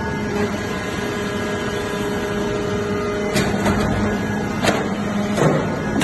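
Hydraulic metal-shaving briquetting press running: a steady mechanical hum, with three sharp clacks in the second half.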